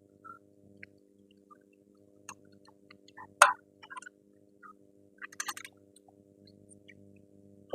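Scattered clicks and clinks of hand tools and metal parts while working on a minivan's front strut bolts. There is one loud sharp click about three and a half seconds in and a short rattle of quick clicks about five seconds in, over a faint steady hum.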